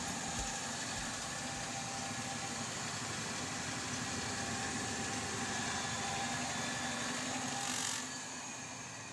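Homemade three-phase axial-flux permanent magnet generator spinning, a steady machine hum with a constant whine. Near the end there is a brief hiss, and the hum is a little quieter after it.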